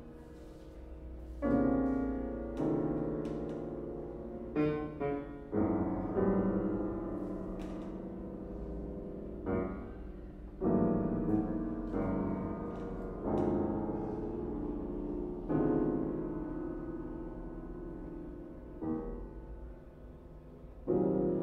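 Two pianos playing a contemporary piece: chords struck at uneven intervals, each left to ring and slowly die away before the next.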